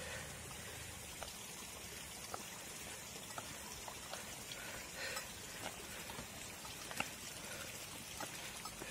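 Bicycle coasting downhill on a rough road: a faint steady rolling noise with scattered light clicks and rattles.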